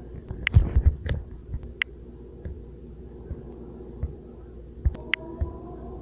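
Steady low background hum with a cluster of knocks and clicks about half a second to a second in, then scattered single clicks, and a faint steady tone near the end.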